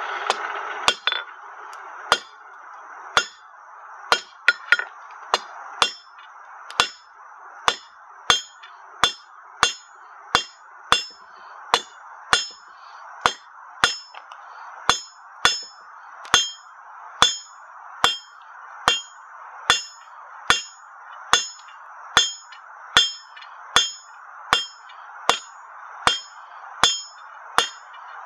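Hand hammer striking a red-hot square steel bar on an anvil, drawing it out to a point. The blows are steady, about one and a half a second with a quick few a little after four seconds in, and each gives a bright metallic ring. A steady rushing noise runs underneath.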